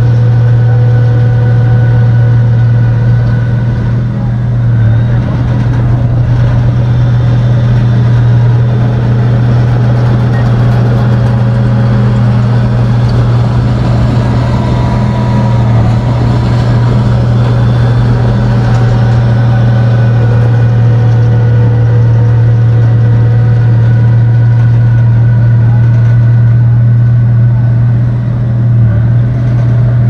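Shantui bulldozer's diesel engine running steadily while it pushes sand: a loud, constant low hum with fainter steady tones above it.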